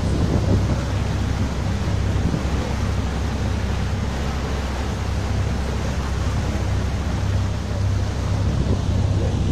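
A boat's engine running with a steady low drone, under the rush of the propeller wash churning behind the stern and wind buffeting the microphone.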